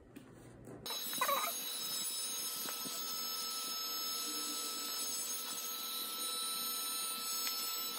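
Small electric air pump running steadily, blowing air into a vinyl air sofa mattress to inflate it: a steady whine over an even rush of air that starts about a second in.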